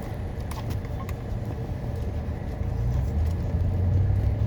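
Car cabin rumble from a car on the move: steady low engine and road noise that grows louder in the second half, with a few faint clicks early on.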